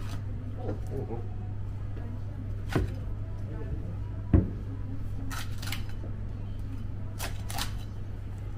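Knife work on a large bluefin tuna: two knocks, the second and louder one about four and a half seconds in, then a few short scraping strokes of the blade, over a steady low hum.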